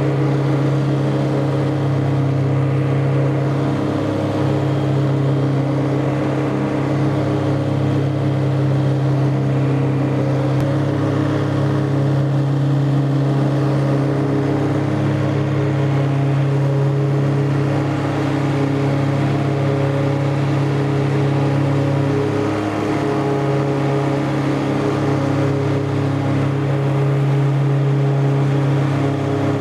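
Tractor engine running steadily under load, driving a 12-foot Woods Turf Batwing three-deck rotary mower through tall, damp grass.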